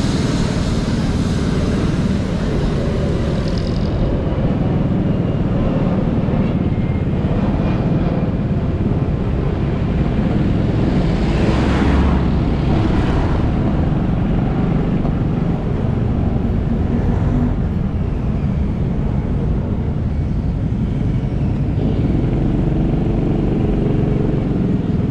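Motorcycle riding along a city street: steady engine and road rumble throughout, with a louder swell about halfway through as a jeepney passes close by in the other direction.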